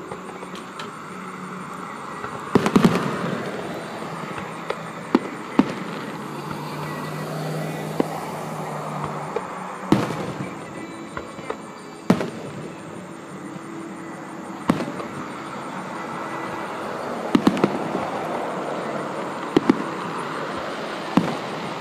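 Aerial firework shells bursting: a dozen or so sharp bangs at irregular intervals, several in quick clusters, the loudest cluster about three seconds in, over a steady background noise.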